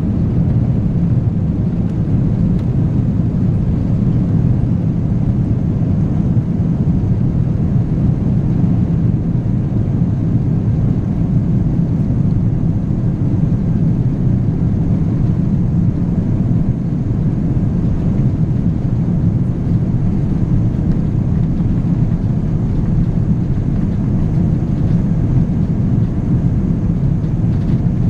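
Steady low drone of an Airbus A319's engines and airflow, heard from inside the passenger cabin.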